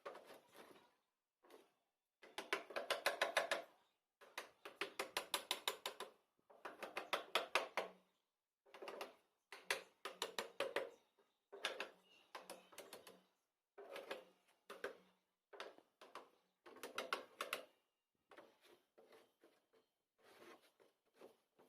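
Woodworking with a hand tool: bursts of rapid, regular rasping strokes, each burst lasting about one to two seconds, with short pauses between.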